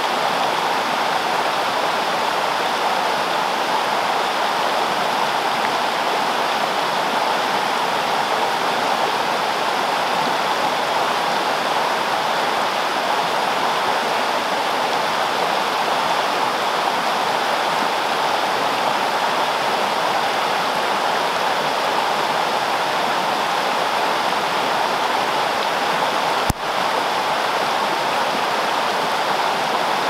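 Steady rush of a fast, shallow creek running over rocks and riffles. A single brief click sounds near the end.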